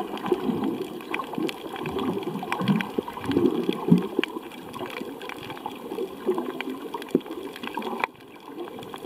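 Muffled underwater water noise picked up through a camera housing: a shifting, gurgling wash with scattered sharp clicks, dropping quieter near the end.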